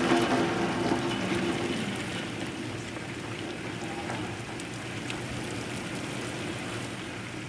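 Heavy rain falling steadily in a thunderstorm, a little louder in the first two seconds.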